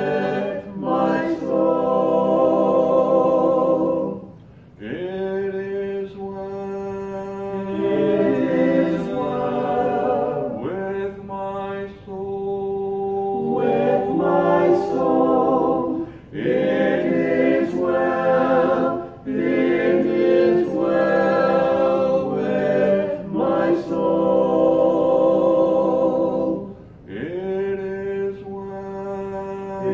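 A small mixed group of five voices, men and women, singing a hymn a cappella from hymnals, in long held phrases with brief breaks between lines.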